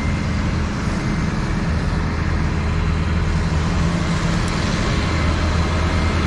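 Bucket truck's engine running at a steady speed while its boom is in use, an even low drone with no change in pitch.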